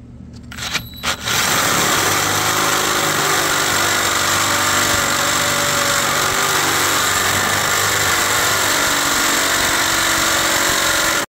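DeWalt cordless drill with a 3/4-inch Milwaukee bit boring through thick 3-inch steel angle iron. Two brief spurts in the first second, then a steady grinding run under load, hot enough to smoke, that cuts off suddenly near the end.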